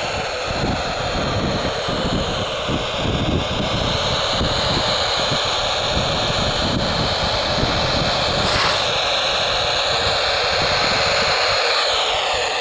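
Steady FM static hiss from a handheld transceiver's speaker tuned to the SO-50 satellite downlink, its tone shifting near the end, with wind rumbling on the microphone.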